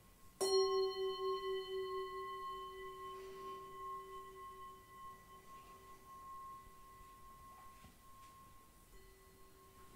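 Singing bowl struck once about half a second in, ringing out with a wavering, pulsing tone that slowly fades over several seconds. A higher steady bowl tone keeps sounding underneath.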